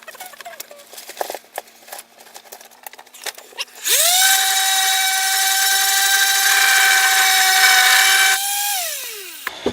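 Electric sander with 320-grit paper, sanding wood: a few light clicks and knocks, then about four seconds in the motor spins up to full speed and runs with a steady high whine. Near the end it is switched off and winds down, its pitch falling.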